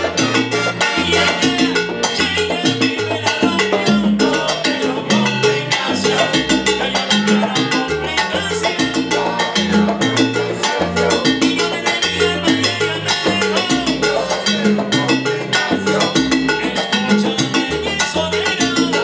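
Live salsa band playing, its horn section of trumpets, trombone and saxophone sounding over a steady, repeating rhythm.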